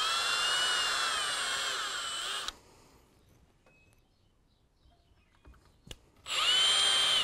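Cordless drill drilling out a rivet in a chainsaw bar nose, pressed hard into the metal: a whine of about two and a half seconds whose pitch sags and recovers under load, then a pause with a couple of faint clicks, and a second short run near the end.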